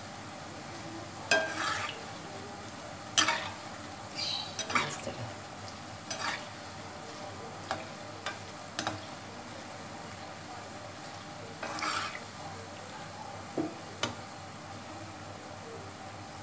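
Small moong dal pakoras deep-frying in hot oil in a metal karahi, a steady sizzle, being cooked until golden. A perforated metal slotted spoon stirs them, scraping and clinking against the pan every second or two.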